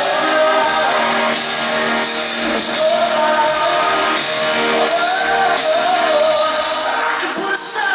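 Live pop song: a male lead singer's held, wavering vocal line over band accompaniment with a steady beat.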